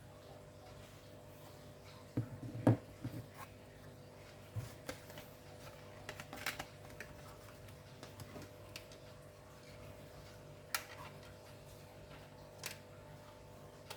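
Scattered light clicks and taps of hands handling a laptop's hard drive and internal parts during a drive swap, the loudest knock about three seconds in, over a faint steady hum.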